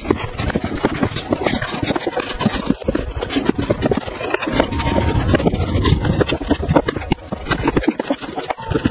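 Paperback manga volumes being slid and knocked into place on a shelf: a rapid, continuous run of taps, clacks and scraping.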